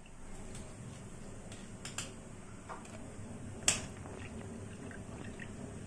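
Steel spoon working soaked dahi vadas into thick spiced yogurt in a steel bowl: soft wet squelching, with a light clink about two seconds in and a sharp clink of spoon on bowl a little past halfway.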